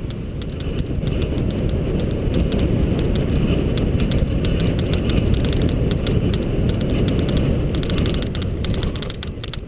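Mountain bike riding over a rough grass track, heard through a GoPro: wind buffeting the camera's microphone makes a steady low rumble, and quick rattling clicks from the bike and mount come faster near the end.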